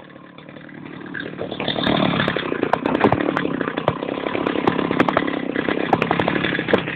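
Power saw cutting into the post of a roadside speed camera. It builds up over the first two seconds, then cuts steadily with a gritty crackle running through it.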